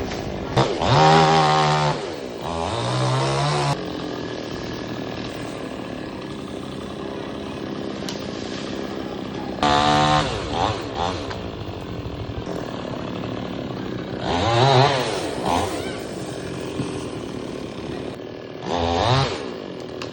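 Chainsaw running continuously, revving up and back down in several surges about 1, 10, 15 and 19 seconds in, with steady running between them.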